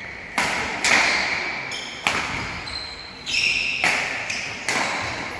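Badminton rally on an indoor court: a run of sharp racket-on-shuttlecock hits and footfalls, about one a second, each echoing in the hall, with short squeaks of sports shoes on the court floor in between.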